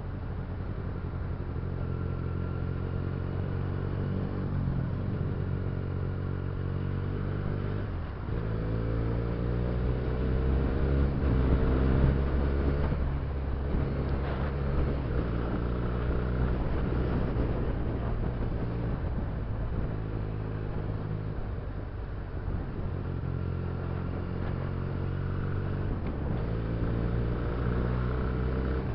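Benelli TNT300's parallel-twin engine running as the motorcycle rides through city traffic. Its pitch breaks about eight seconds in, then climbs as it accelerates, loudest a few seconds later. It eases off and rises again near the end.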